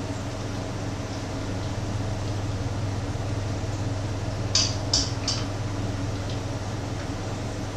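Pancakes frying in a pan with a steady hiss over a low hum. About four and a half seconds in come three quick sharp scrapes or clicks as the pan is worked.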